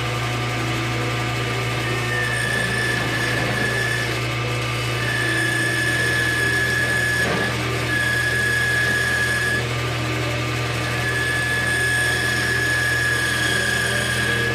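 Wood lathe running while a hand-held tool cuts a spinning steel rod. A steady motor hum underlies a high, thin whine from the cut that comes and goes in stretches of one to three seconds, about four times.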